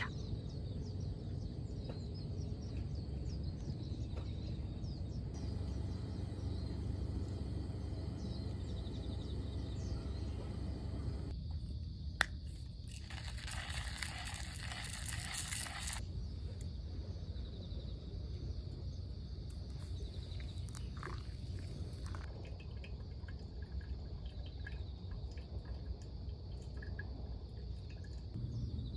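Outdoor ambience of insects chirring steadily over a low rumble of wind, broken by several cuts. About twelve seconds in there is a sharp click, followed by a few seconds of loud hiss.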